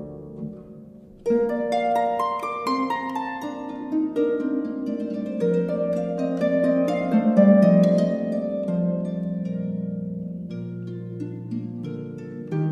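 Gentle instrumental background music of plucked-string notes over held lower tones. It dips briefly and a new phrase begins about a second in.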